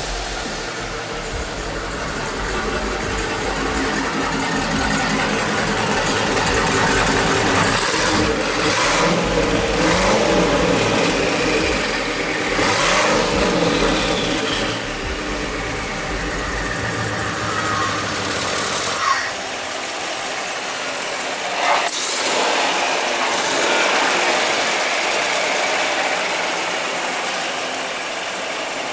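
A twin-turbo Camaro's engine running and revving, with two sharp short spikes about two thirds of the way through.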